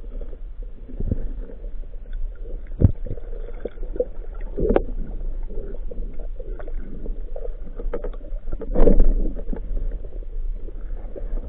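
Muffled underwater sound of a freediving spearfisher's camera: a steady low rumble with scattered clicks and knocks, a sharp knock about three seconds in and a louder thump near nine seconds.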